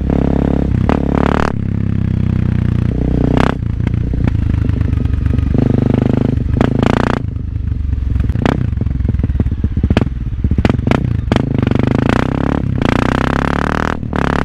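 Honda CRF250L's single-cylinder four-stroke engine through an FMF aftermarket exhaust, under way and rising and falling in pitch with the throttle. The note is broken by several short gaps.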